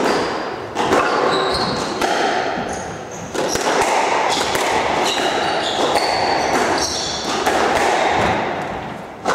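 Squash rally: the ball is struck by rackets and slaps off the court walls about once a second, with short squeaks from the players' shoes on the wooden floor, echoing in the court.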